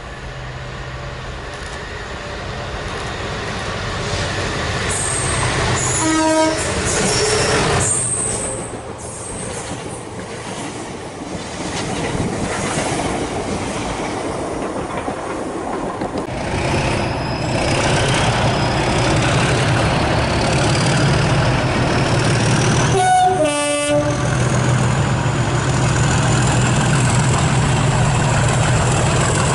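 Trains passing through a station, with a horn blast about six seconds in. Later a Colas Rail Class 37 diesel locomotive runs with a steady engine note and a whine rising in pitch, and sounds its horn again near the end, over wheel noise on the rails.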